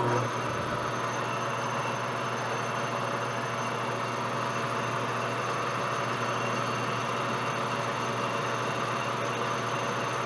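Metal lathe running with its four-jaw chuck spinning, a steady mechanical hum with a faint high whine from the drive.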